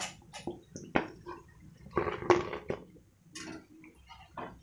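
Chicken pieces deep-frying in hot oil, crackling and popping, while a wire spider skimmer clinks against the pan as the fried pieces are lifted out and tipped onto a plate. The loudest clatter comes about two seconds in.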